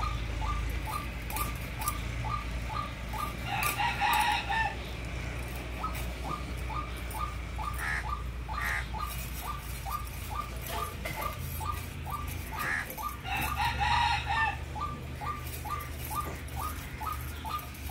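A rooster crowing twice, once about four seconds in and again about thirteen seconds in. Under it runs a steady series of short, evenly spaced ticks, about three a second, over a low rumble.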